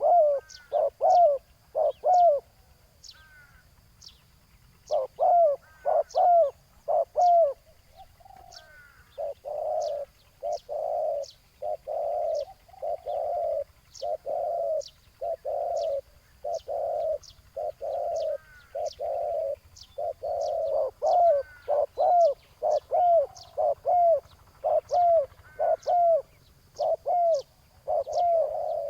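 Spotted doves cooing: repeated low, hooting coo notes in phrases, with a short gap a few seconds in and then a long, even run of coos. Faint quick high chirps from a smaller bird tick along over the top.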